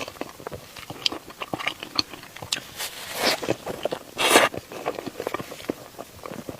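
Close handling noises: many small clicks and scrapes, with two short rustles about three seconds in and just after four seconds, the second the loudest.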